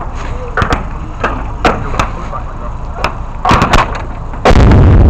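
Blank gunfire: a string of sharp, scattered cracks, then about four and a half seconds in a very loud close blast of a towed field gun firing a blank, overloading the microphone.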